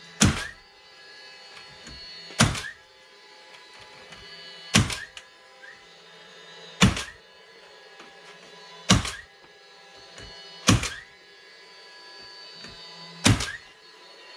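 Seven sharp strikes about two seconds apart, each leaving a metallic ring, as fasteners are driven through sheet-metal roofing steel into the framing.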